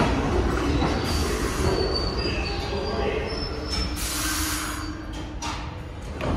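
New York City subway train rumbling along the platform, its wheels squealing in thin high tones and fading, with a short burst of hiss about four seconds in.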